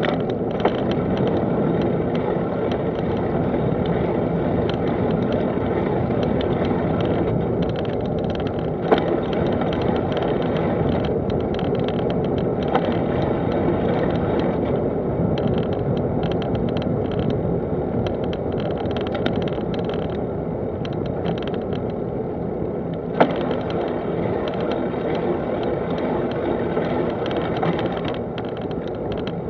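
Steady rumble of tyres rolling on tarmac mixed with wind on the microphone while travelling along a road, with two short sharp clicks, one about nine seconds in and one about 23 seconds in.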